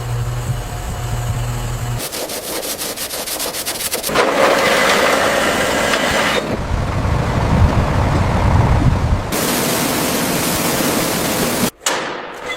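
A run of short, different workshop and machine noises with abrupt changes every two to three seconds. It opens with a steady low hum, moves to a fast run of even clicks and rough rasping noise, then a low rumble, and ends with a steady hiss before a sudden cut.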